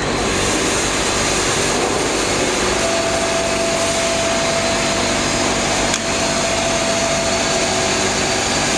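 Steady running noise of a filament extrusion line's machinery, with a thin steady whine that comes in about three seconds in and a single sharp click about six seconds in.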